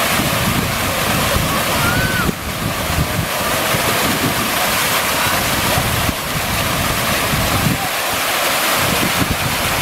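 Splash-fountain jets spraying and pouring down onto a stone basin in a steady, loud rush of water, with wind rumbling on the microphone.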